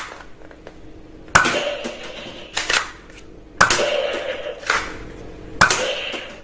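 Spring-loaded toy pistol firing foam darts, three shots about two seconds apart. Each shot is a sharp snap that trails off over most of a second, and after the first two a fainter knock follows about a second later.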